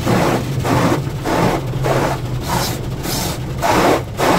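Automatic tunnel car wash heard from inside the car: water spray and cloth brushes swishing over the windshield and body in a regular rhythm, a little under two swishes a second, over a steady low hum of the wash machinery.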